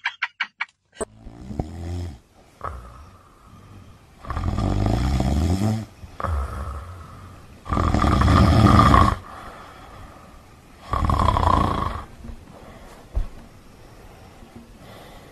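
Snoring: three long, loud snores a few seconds apart.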